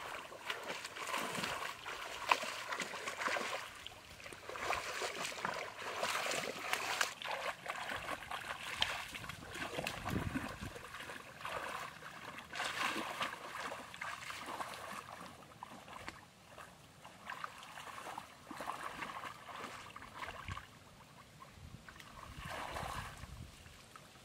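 Muddy pond water splashing and sloshing irregularly as a person wades through it and gropes about under the surface with her hands.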